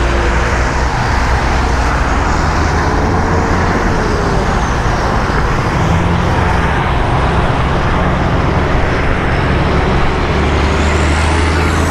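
Heavy rotator tow truck's diesel engine pulling steadily at low speed while towing a loaded semi along the shoulder, a deep drone whose pitch shifts about halfway through. Heavy road and wind noise and passing interstate traffic run under it.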